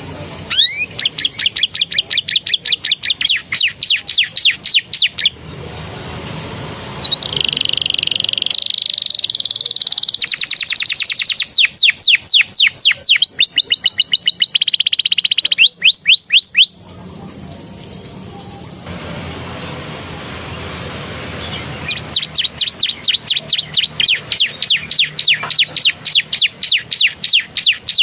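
Domestic canary singing a song with borrowed ciblek and prenjak phrases: bouts of rapid, repeated falling whistled notes at about six a second, and in the middle a varied stretch of held notes and faster trills, with a pause of a few seconds before the last bout.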